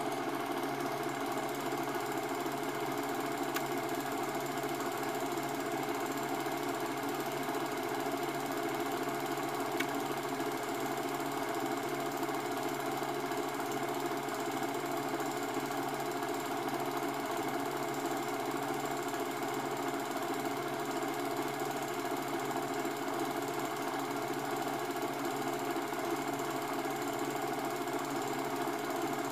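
Cine film projector running: a steady mechanical whirring that does not change.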